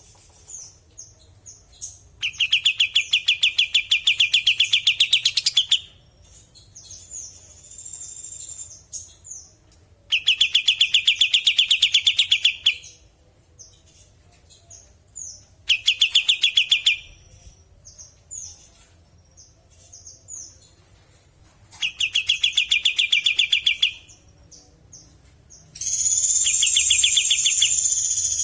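Kapas tembak songbird singing: loud, rapid rattling trills lasting a few seconds each, five in all, with short high chirps between them. The last trill is higher and smoother.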